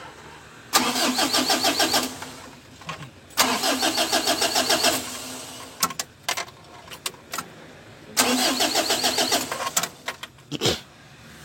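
Mitsubishi L300 diesel engine being cranked by the starter three times in short bursts, a rapid even chugging each time, without catching and running: the hard starting that is being traced to the glow plug heater circuit. A few short clicks sound between the attempts.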